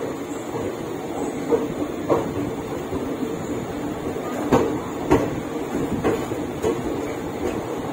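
Indian Railways express passenger coach rolling along, heard from on board: a steady rumble with sharp wheel clicks over rail joints, several coming in pairs about half a second apart.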